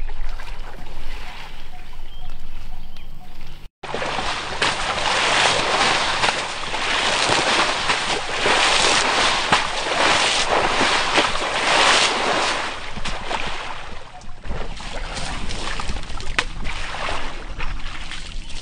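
Muddy water splashing and sloshing as an Asian elephant stirs and kicks through a mud wallow, a dense, continuous wash of splashes. Before that it is quieter, broken by a brief dropout about four seconds in.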